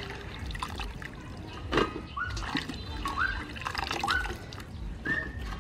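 Water splashing and dripping in a stainless steel bowl as hands wash water lily stems, with several short rising plinks of drops falling back into the water and one sharper splash about two seconds in.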